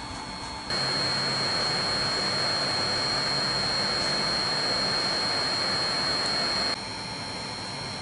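Small USB bladeless desk fan running: a steady rush of air from the blower inside its base, with a thin high whine. About a second in it gets sharply louder, close to the intake grille, and drops back just as suddenly near the end.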